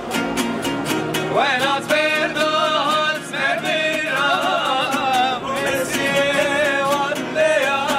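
Men singing a song to two strummed acoustic guitars, the strumming in a quick, steady rhythm under the wavering melody.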